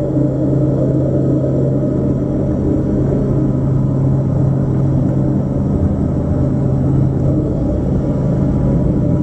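Deep, steady rumbling drone from the dance piece's score, with a low hum held unchanged underneath.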